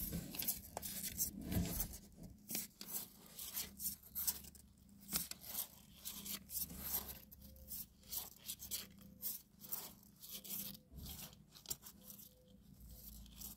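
Newborn kittens nursing and shifting against their mother cat in a cardboard box: quiet, irregular rustling and soft clicks.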